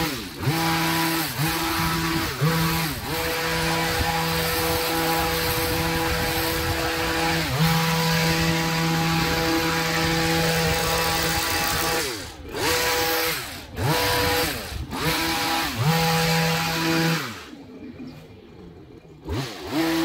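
Petrol garden power tool's small engine running at high revs. Its pitch drops and picks up again repeatedly as the throttle is let off and squeezed. Near the end it falls back to idle for about two seconds, then revs up again.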